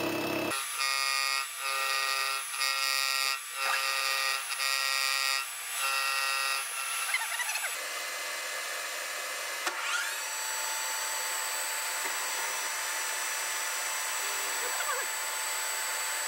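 Milling machine spindle whining as a ball-nosed (spherical) cutter machines a welded aluminium camshaft bearing support in a cylinder head, cutting in short bouts for the first several seconds. About ten seconds in the whine rises in pitch, then holds steady.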